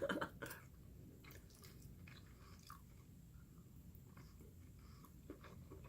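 Faint chewing with soft, scattered mouth clicks, from someone eating cheesy beef spaghetti with meatballs.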